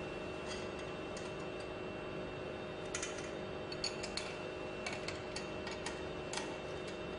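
Irregular light metallic clicks and taps of hand tools working on a progressive cavity pump's tie rods, over a faint steady hum.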